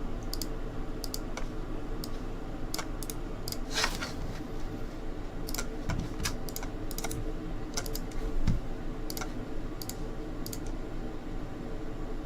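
Irregular clicks and taps of a computer keyboard and mouse, some in quick pairs, over a faint steady hum, with one soft thump about two-thirds of the way in. The clicking is the randomizer being run on the list of names.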